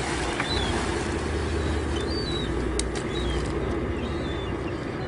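Steady low hum of an idling boat engine under an even wash of wind and water noise, with several short high chirps from birds scattered through it.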